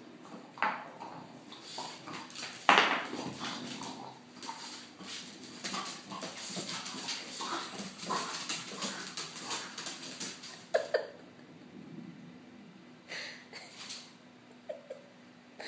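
French bulldog snorting and grunting as it plays, its claws clicking and scrabbling on a hardwood floor, with one louder burst about three seconds in.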